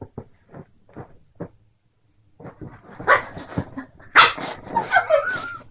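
A Pekingese puppy barks at play: a sharp bark about three seconds in, then a louder bark that trails into a falling, whining cry. Before that there is only faint rustling.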